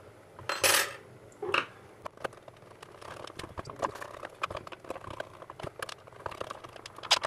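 Hard plastic VFD enclosure being handled: a short scraping rustle under a second in and another soon after, then many light clicks and rattles of the plastic case and cover as it is lifted and turned, with a sharper click near the end.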